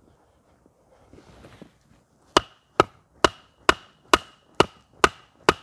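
Steady hammer blows driving a stake into the ground: eight sharp strikes, about two a second, each with a short metallic ring, starting a little over two seconds in.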